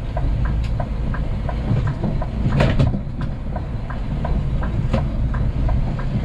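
Scania P380 dump truck running with a steady low engine and road rumble, over a regular ticking of about three clicks a second that alternate higher and lower. A couple of sharp knocks stand out, one about two and a half seconds in and another near five seconds.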